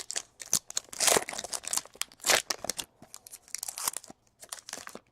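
Baseball trading cards and their packaging being handled: an uneven run of papery flicks, slides and crinkles as the cards are shuffled through.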